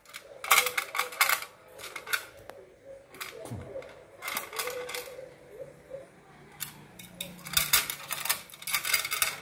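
Dusky lory giving about five bursts of harsh, noisy chatter, with quieter gaps between, while it is being stroked by hand.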